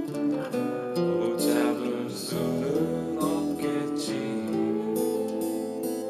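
Steel-string acoustic guitar playing a melodic solo line, single picked notes changing every fraction of a second, with some notes ringing over one another.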